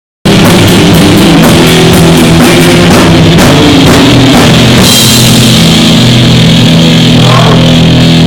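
Live rock band playing loud: distorted guitars and bass over fast drum-kit strokes. About five seconds in a cymbal crash opens into a long held chord with cymbals washing over it.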